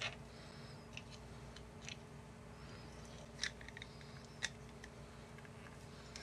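Faint clicks and taps of an FPV antenna being handled and fitted into its antenna holder, a few scattered small clicks with two slightly louder ones about three and a half and four and a half seconds in, over a low steady hum.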